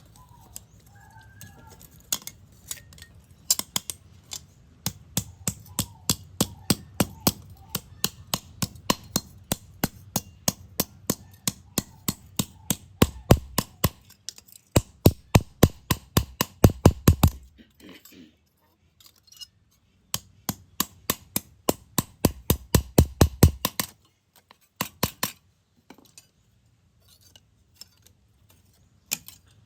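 Hammer striking metal in quick, even blows, about four a second, in runs of several seconds with brief pauses, then a few scattered knocks before stopping.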